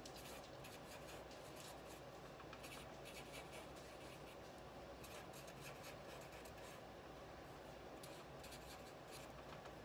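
Faint scratching of a black Sharpie marker on paper, drawing small flowers in short, quick strokes.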